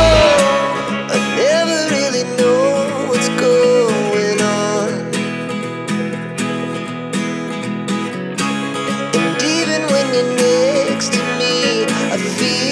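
Background music with acoustic guitar and a gliding melody line; the deep bass drops out right at the start.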